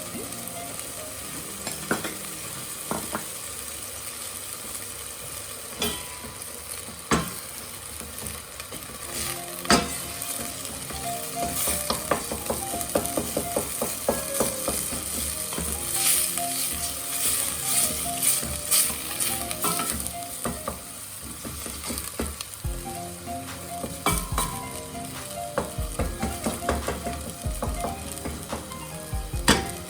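Minced lamb frying in hot oil in a pan, sizzling steadily, with a utensil scraping and clicking against the pan as the meat is stirred and broken up, busiest around the middle.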